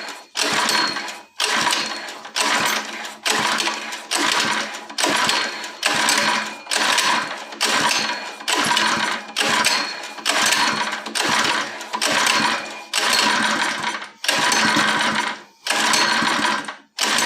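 Small tiller engine being cranked with its recoil pull-starter, choke on, in quick, evenly spaced pulls over and over, each pull a short whirring rush, without the engine catching.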